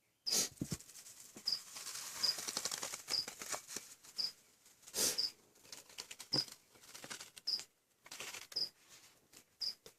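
A cloth snake bag being rustled and handled, with scattered knocks and a stretch of steady rustling in the first few seconds. A short, high chirp repeats about once a second throughout.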